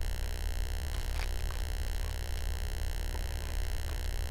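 Steady low electrical hum, with a few faint crunches about a second in from chewing a crunchy freeze-dried ice cream sandwich.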